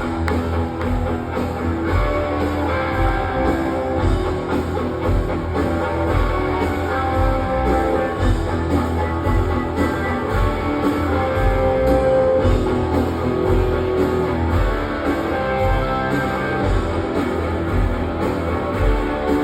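Live rock band playing an instrumental passage: electric guitars over a steady kick-drum beat, loud and continuous.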